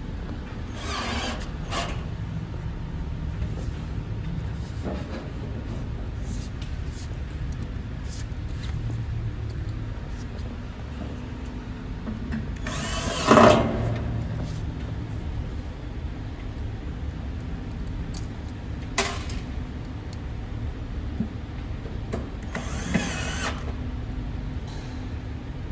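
Power drill driving screws into a cabinet in several short bursts, the loudest about halfway through, over a steady low background hum.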